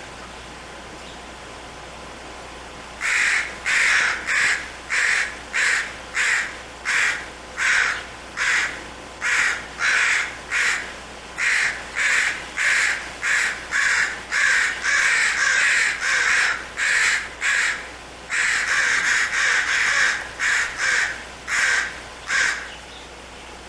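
A crow cawing over and over, about two calls a second, starting a few seconds in and stopping shortly before the end, over a faint steady low hum.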